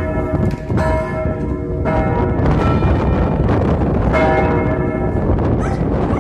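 Church bell ringing, struck again every second or two, each stroke ringing on into the next, over steady low noise.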